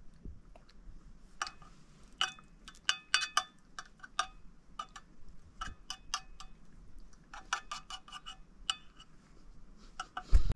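A spoon clinking and scraping against a metal plate of rice milk: a string of light, ringing clinks in irregular clusters. A single low thump comes near the end.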